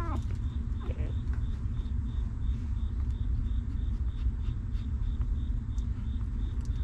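Newborn puppy whimpering, two short falling squeaks in the first second. A steady low rumble and a faint high chirp repeating a couple of times a second run underneath.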